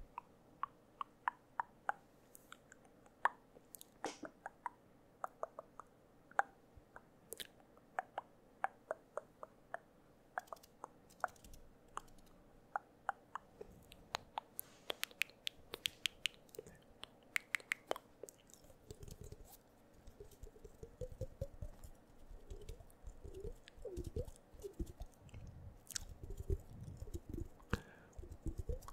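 Close-miked wet mouth sounds from a man's mouth: quick sharp tongue and lip clicks at first, changing about two-thirds of the way through to softer, denser wet smacking.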